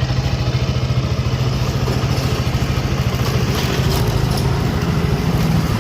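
KTM 200 single-cylinder engine running steadily with timing chain noise. The noise comes from a faulty timing chain tensioner whose spring has gone loose.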